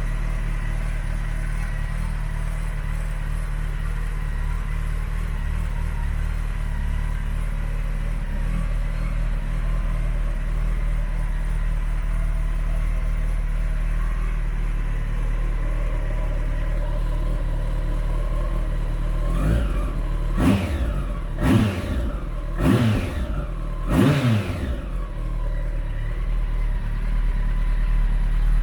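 Kawasaki ZX-14R's inline-four engine idling steadily through an aftermarket Nojima silencer, then blipped in a quick run of short throttle revs about two-thirds of the way in, each rising and dropping back before it settles to idle again.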